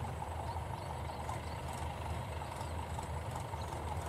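Mahindra 475 DI tractor's four-cylinder diesel engine running steadily under load as it pulls a fully loaded trolley, a low, even chugging rumble.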